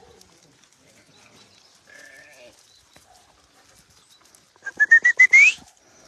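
Goat bleating. A faint call comes about two seconds in, then a loud quavering bleat about five seconds in that climbs in pitch over roughly a second.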